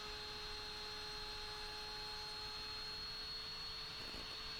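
Faint, steady electrical hum with a thin high whine over a light hiss; no tool is running.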